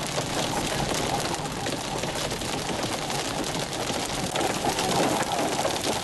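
Hail and heavy wind-driven rain pelting a car: a dense rattle of many small impacts over a steady rush.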